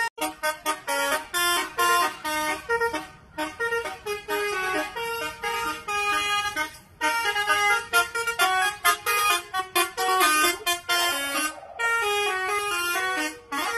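Telolet truck horn, a set of musical air horns, playing a quick tune of short notes that jump in pitch, with brief pauses between phrases.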